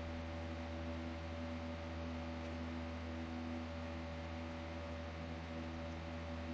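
Electric fan running: a steady low hum with several steady tones over a faint hiss.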